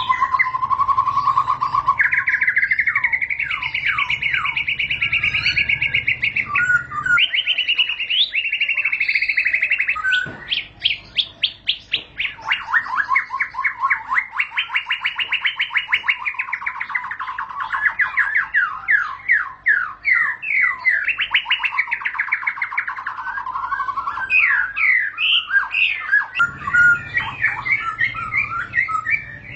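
White-rumped shama (murai batu) singing one long, unbroken song. It opens with held whistled notes, first low and then higher, and about ten seconds in breaks into fast rolling trills of rapidly repeated notes.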